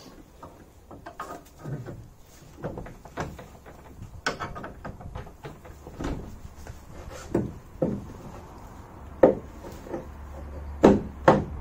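Irregular clunks and knocks of a car driveshaft and its CV joint being handled and worked into the front wheel hub, with a few sharp knocks near the end.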